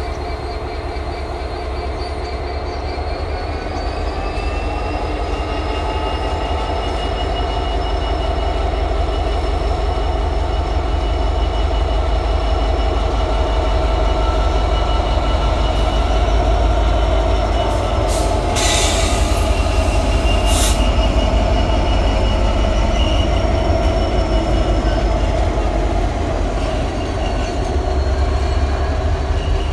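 Class 66 diesel locomotive, its two-stroke V12 engine running, hauling a freight train slowly past with a steady low rumble, while the wheels squeal in thin high steady tones. Two short bursts of noise come a little past halfway, about two seconds apart.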